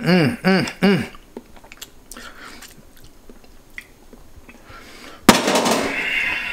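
A man's short appreciative 'mmm' hums while tasting sauce: several quick hums, each falling in pitch. About five seconds in comes a sudden loud clatter, the loudest sound here, trailing off into a noisy rattle.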